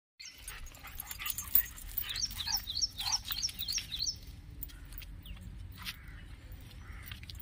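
A songbird sings a quick run of about seven falling, whistled notes, roughly three a second, about 2 to 4 s in. Scattered light clinks of a dog's metal chain come and go around it.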